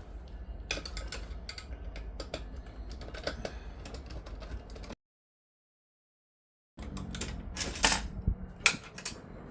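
Irregular clicks and clanks of hand tools and metal parts as dishwasher parts around the pump are worked loose, cut off by about two seconds of dead silence partway through; the sharpest knocks come near the end.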